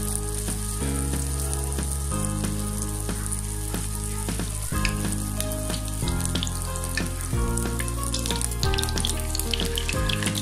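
Battered Bombay duck fish pieces sizzling and crackling in hot oil as they are added one by one to the pan, with a steady hiss and frequent spattering pops. Background music with held low notes plays underneath.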